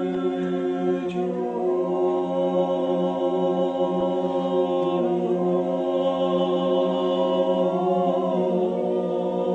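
Background music of slow choral chanting: several voices hold sustained chords over a steady low drone note, and the chord shifts every few seconds.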